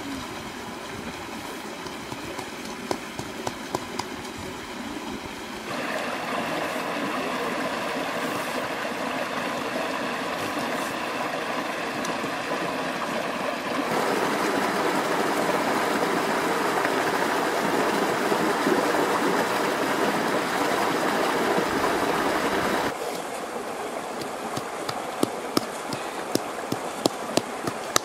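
Small river rushing over rocks, a steady rush that steps louder about six seconds in and again halfway through, then drops back near the end. Scattered sharp clicks and taps sound over it in the first few seconds and the last few.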